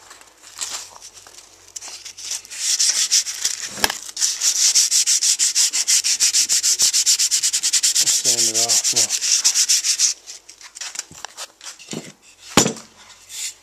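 Rapid back-and-forth hand-sanding strokes on a maple pickeroon handle, running steadily for several seconds and stopping about ten seconds in. A sharp knock comes near the end.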